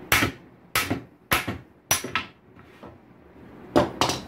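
Hammer blows knocking at the rusted hinge pin of a wooden painting easel to drive it out. Four sharp blows come about every half second with a lighter tap after the fourth, then a pause and two quick blows near the end.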